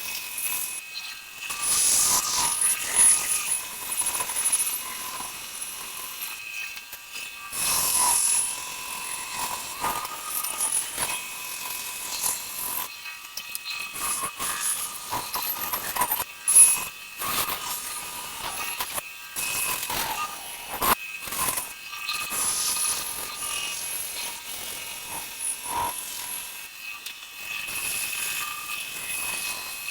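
Power saw cutting wooden pieces, its cutting noise swelling and dropping every few seconds as each cut starts and ends, over a steady machine whine.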